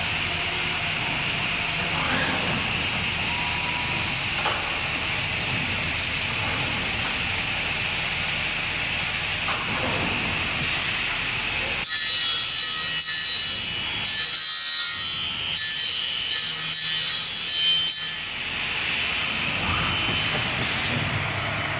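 URBAN AKS 6110 + SV 530 window welding and corner cleaning line at work: a steady machine hum with a high whine, then about twelve seconds in, some six seconds of loud, harsh rasping in short bursts before the hum returns.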